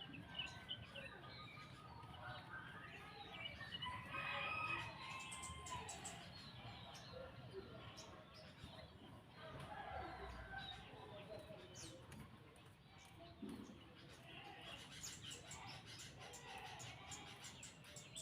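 Faint bird chirps and calls, short and gliding, repeating throughout, with scattered sharp clicks and wing flapping.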